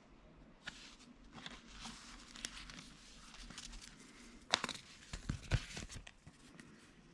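Paper leaflets rustling and crinkling as they are handled and lifted out of a cardboard box, with a cluster of louder rustles and knocks in the second half.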